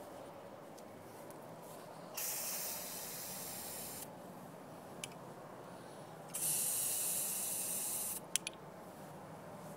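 Aerosol spray-paint can spraying in two bursts of about two seconds each, a steady hiss, followed by two sharp clicks near the end.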